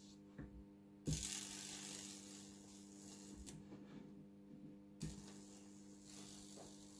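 High-voltage fractal-burning rig working on a wooden axe handle: a steady electrical hum, with two bursts of hiss, about a second in and again about five seconds in, each starting with a sharp click and fading out.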